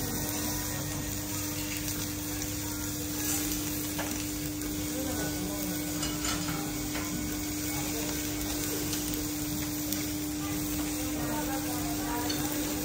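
Food sizzling steadily on a teppanyaki steel griddle, with the light scrape and tap of a knife, fork and spatulas on the hot plate as lobster is cut and moved. A steady low hum runs underneath.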